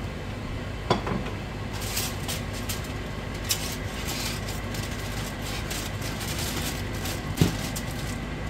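Kitchen sounds: a steady low hum with light knocks of pots or utensils, one about a second in and a sharper one near the end, and a faint crackle in between.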